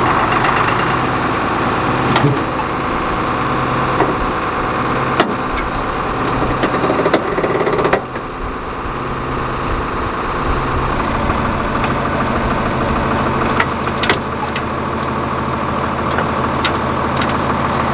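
Tractor engine running steadily at a low speed, with scattered sharp clicks and clanks over it.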